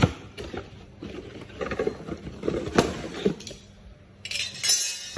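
Hands handling hardware, with scattered sharp knocks and small metallic clinks and a short scraping, rustling burst just before the end.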